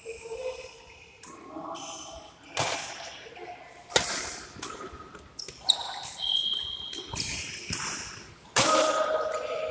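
Badminton rackets striking a shuttlecock during a doubles rally: about five sharp hits a second or more apart, ringing in a large hall.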